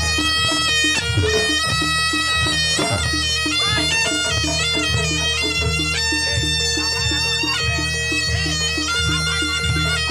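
Jaranan ensemble music: a slompret, a loud reedy shawm, plays a stepping melody of held notes over a steady, fast-repeating beat of drums and gongs.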